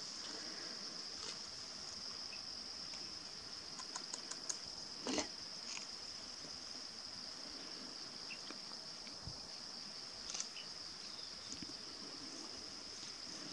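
A steady, high-pitched insect drone, with a few brief rustles and snaps of grass and twigs as a southern tamandua forages through the vegetation. The loudest crackle comes about five seconds in, with another near ten seconds.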